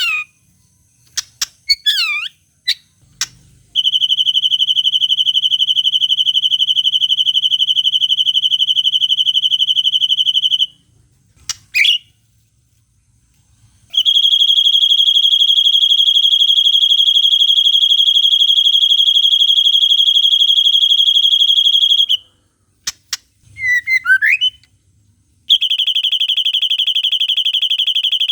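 White-rumped shama (murai batu) song: three long, even, high buzzing trills of seven to eight seconds each in the 'cililin panjang' style, separated by short gliding whistled chirps and sharp notes.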